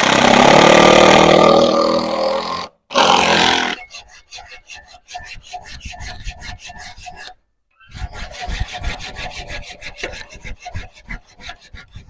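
Cordless drill running in two loud bursts as it drives a fastener into the wooden board at the foot of the metal frame, followed by a long run of fast, even rasping ticks.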